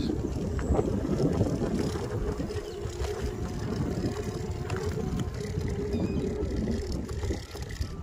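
Electric kick scooter ridden over a rough dirt track: a continuous rumble with rattling jolts from the bumps, and a faint steady hum under it.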